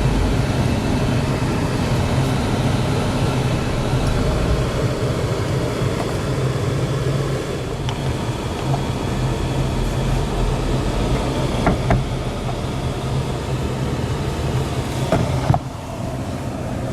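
Jeep Wrangler cabin noise while driving on the highway: steady engine hum and road noise, with a few faint clicks. The noise drops a little about three-quarters of the way through.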